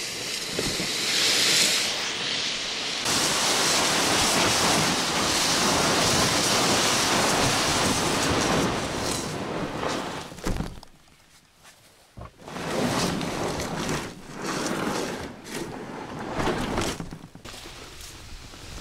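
Inflatable PVC boat dragged over sand and grass, its hull scraping steadily. After a brief quiet gap about eleven seconds in, broken scraping and rustling follow as it is pushed through reeds into the water.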